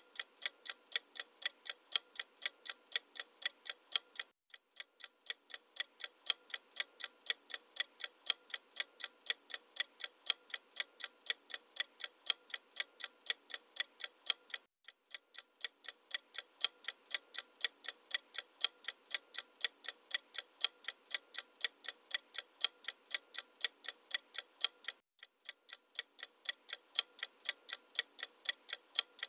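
Clock-ticking sound effect used as a quiz countdown timer: a steady run of even, crisp ticks that breaks off for a moment three times, about four, fifteen and twenty-five seconds in, and starts again.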